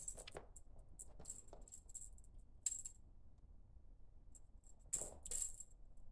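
Small metal bell jingling in short, scattered shakes, with the loudest jingles about five seconds in.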